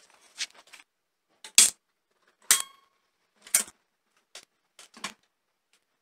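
Knocks and metallic clanks from handling an Olympia SG1 mechanical typewriter, roughly one a second, with faint paper rustling at the start. One clank about two and a half seconds in rings briefly.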